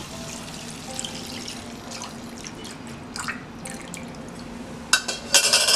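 Coconut milk poured from a steel bowl into a pan of chicken, trickling and dripping over a low steady hum. About five seconds in come a couple of louder clattering knocks.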